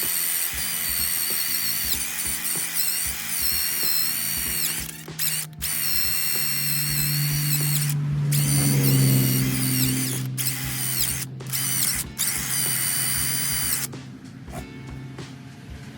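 High-speed handheld power tool whining in several runs with short stops, its pitch wavering as it is pressed into the work, then stopping about two seconds before the end; typical of cleaning old gasket glue and gunk off an LS engine block.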